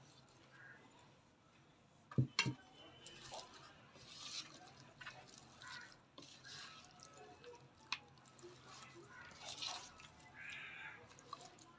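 Soft rustling and squishing as a plastic spoon turns fresh fenugreek leaves into yogurt-coated raw mutton in a plastic bowl. Two sharp knocks about two seconds in, and a single click near eight seconds.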